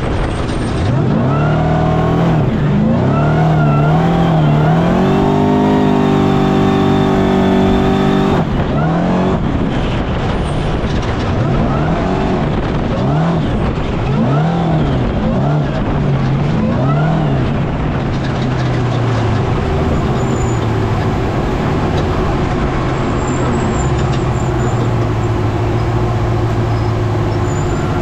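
Off-road desert race car's engine at full throttle, revving up and down through gear changes and throttle lifts over constant rattle and road noise. It is held high for a few seconds before a sharp lift about eight seconds in, then swings up and down repeatedly and settles into steadier running near the end.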